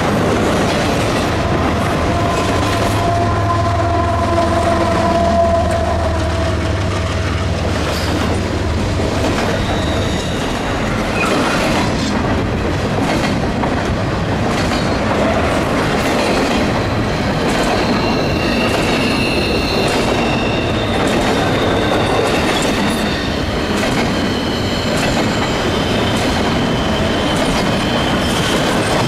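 A CPKC double-stack container train rolling past on a curve, its wheels clicking over the rail joints. The wheel flanges squeal at times, with higher, sharper squeal tones in the second half. A low rumble sits under the first ten seconds or so, then fades.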